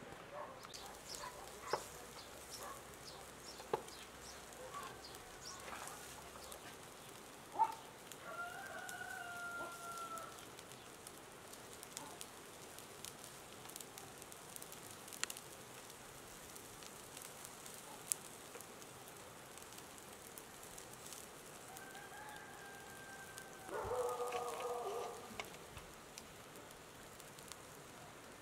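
A rooster crowing twice, once about eight seconds in and again, louder, after about twenty-two seconds, with scattered faint clicks in between.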